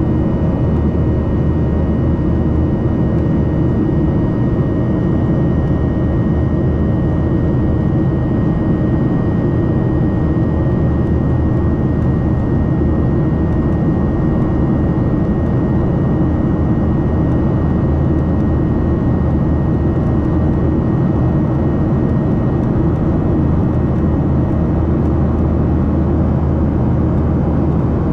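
Boeing 737-800 cabin noise heard from a window seat beside the CFM56-7B engine during the climb: a steady, deep drone of engine and airflow. A faint high whine rides over it and fades out about halfway through.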